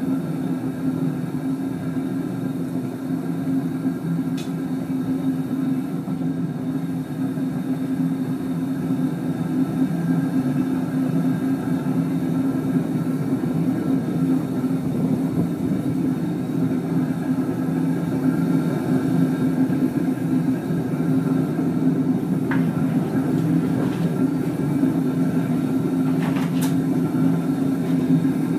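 Gas burner firing a homemade furnace built from an old gas cylinder: a steady low rumble of burning gas, getting slightly louder about a third of the way in, with a few faint clicks near the end.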